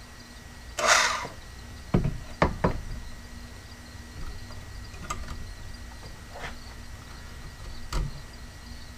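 Knocks and clunks of a portable band saw being handled and set against a steel rod held in a bench vise. A short rush of scraping noise comes about a second in, then three quick knocks around two seconds in and one more near the end. The saw is not running.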